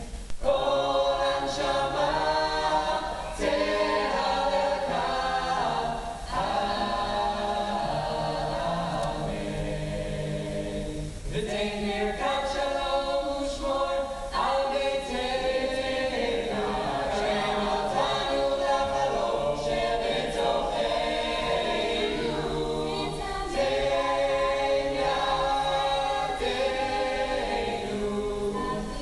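Mixed-voice a cappella group of men and women singing in close harmony with no instruments, holding sustained chords with brief breaks between phrases.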